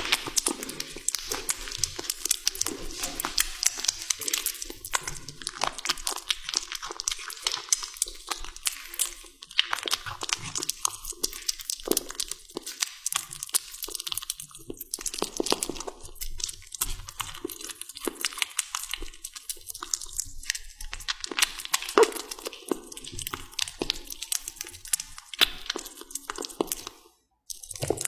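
A kitten licking and chewing a raw salmon fillet: a dense, rapid run of small wet eating clicks, broken by a brief gap near the end.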